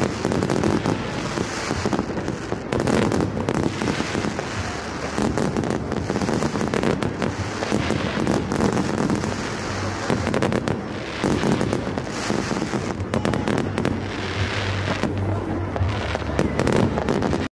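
Aerial fireworks going off in quick succession: many sharp bangs from bursting shells over a constant crackle, cutting off suddenly at the end.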